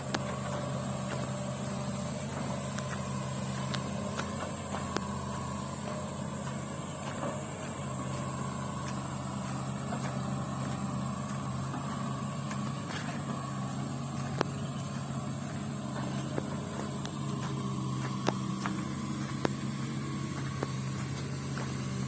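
Diesel engine of a hydraulic excavator running steadily at an even speed, with a few scattered short clicks and knocks.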